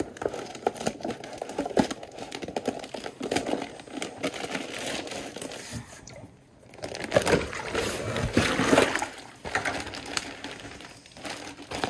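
Plastic bait bag crinkling and rustling as it is handled and opened over a plastic bucket, then water splashing and sloshing as the bag of minnows is tipped and emptied into the bucket, loudest about seven to nine seconds in.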